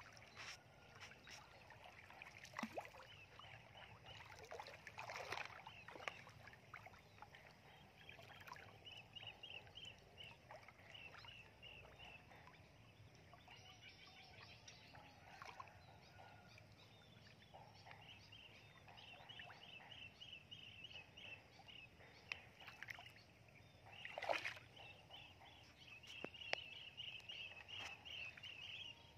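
Faint splashing of feet wading through shallow muddy floodwater, with two louder splashes, one a few seconds in and one near the end. Runs of quick, high chirping calls repeat in the background.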